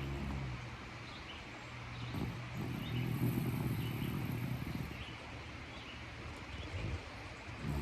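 Yorkshire terrier snoring in its sleep. The first snore tails off just after the start, a long rough snore runs from about two seconds in to about five, and the next buzzing snore begins right at the end.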